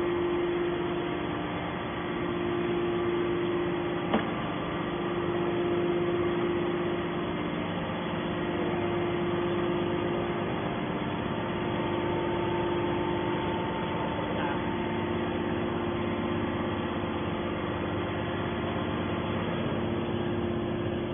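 Hydraulic can baler's motor and pump running with a steady hum, with a single sharp click about four seconds in.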